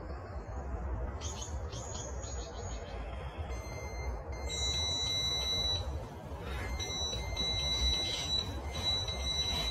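Electronic carp bite alarm sounding a run: a high-pitched beeping that starts about three and a half seconds in and repeats rapidly, over a low rumble.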